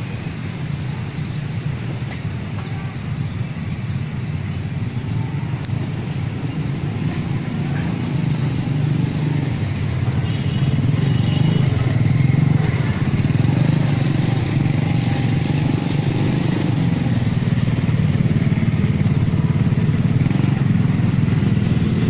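Steady low rumble of a running motor vehicle engine, growing louder over the first half and then holding.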